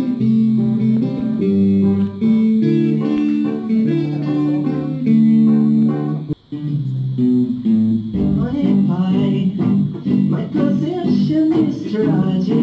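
Live band playing, with electric guitars to the fore over bass and drums. The sound cuts out briefly a little over six seconds in.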